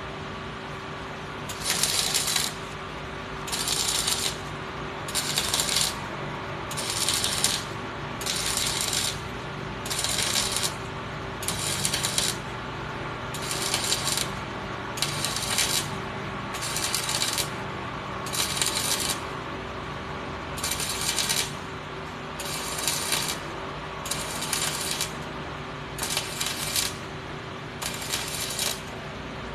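Wire brush scrubbing metal in short, regular strokes, about one every second and a half to two seconds, over a steady shop hum.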